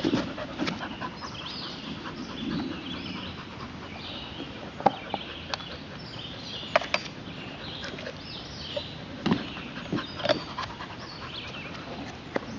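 Dogs panting, with a few sharp clicks scattered through.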